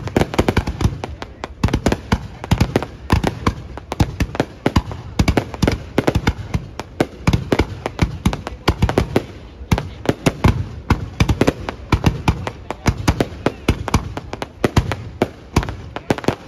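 An aerial fireworks display: rapid, irregular bangs and booms of bursting shells, several a second, echoing and overlapping without pause.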